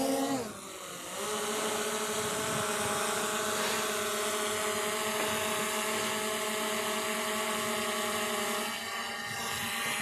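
Quadcopter drone's propellers humming steadily just after take-off, a steady multi-toned whine; the sound dips and shifts pitch briefly about half a second in, then holds level.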